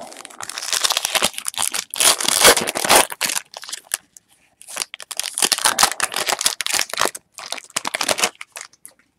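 Foil wrapper of a Topps Chrome trading-card pack being torn open and crinkled by hand, in three bouts of tearing with a short pause about four seconds in and stopping just before the end.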